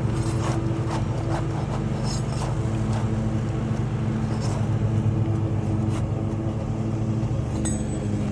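An engine running steadily with a low, even hum, with a few light clicks over it.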